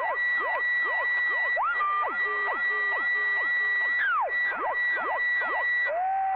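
Electronic tones heard over a CB radio on 27.555 MHz: a steady high whistle with quick swooping glides up and down over it, several a second. It changes to a lower held tone near the end. Typical of a jammer playing tone and sound-effect generators on the channel to disrupt it.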